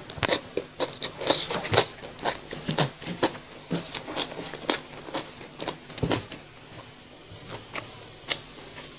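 Close-up eating sounds: a mouthful of fried noodles being chewed, with wet mouth clicks and smacks. They come thick and irregular at first and thin out over the last couple of seconds.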